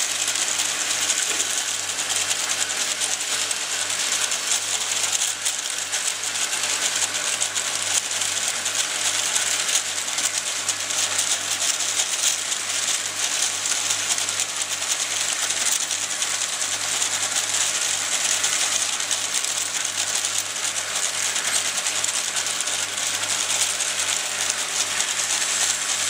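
Rotary vial filling, stoppering and capping machine running: a steady, unbroken mechanical clatter of its turntables and the vials moving through it, over a low steady hum.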